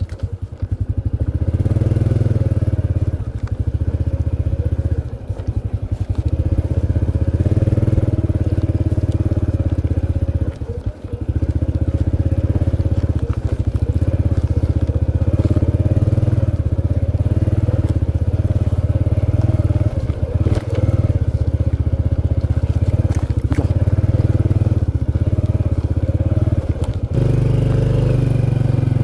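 Honda underbone motorcycle's small single-cylinder four-stroke engine running under throttle as it is ridden slowly over rutted mud, its note rising and falling with brief dips about five and eleven seconds in. Near the end it settles into a steadier note.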